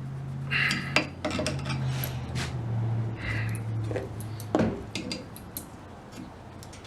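Metal clinks and knocks as the old wooden handle is driven out of a hatchet head with a makeshift punch, over a low steady hum that stops about two-thirds of the way in.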